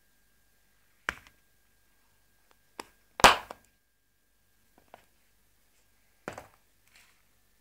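A handful of short knocks and taps from a black sunglasses case being handled on a wooden table, the loudest about three seconds in.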